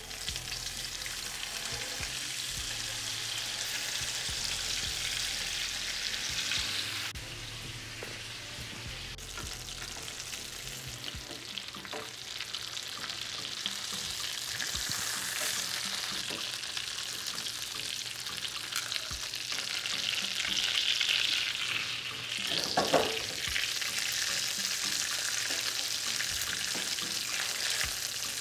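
Salmon fillets sizzling as they pan-sear in oil in a nonstick frying pan, a steady hiss, with a few clicks and knocks of metal tongs against the pan as the fish is turned.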